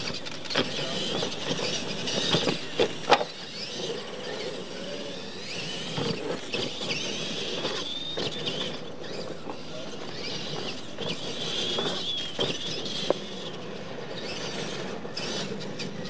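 Electric radio-controlled monster trucks racing: a high motor and gear whine that rises and falls as they accelerate and slow, with sharp knocks as trucks land jumps, the loudest about three seconds in.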